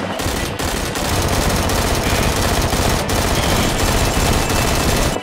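Sustained rapid automatic gunfire, a dense unbroken stream of shots from a machine-gun sound effect.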